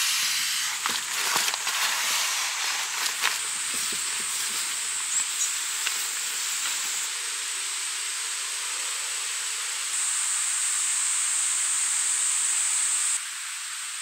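Rustling and handling of a nylon sleeping pad for the first few seconds, over a steady high-pitched hiss that runs throughout and shifts in level a couple of times.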